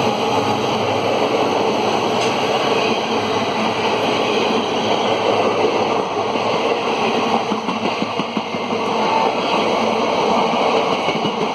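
Indian Railways express passenger coaches rushing past at speed, a steady loud roar of wheels on rails with rhythmic clattering from the running gear.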